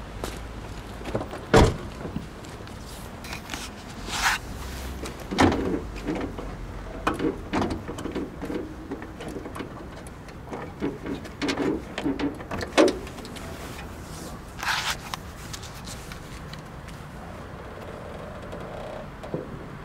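Irregular clicks, knocks and short rattles of a car's doors and interior fittings being worked by hand, the loudest a sharp knock under two seconds in; it goes quieter in the last few seconds.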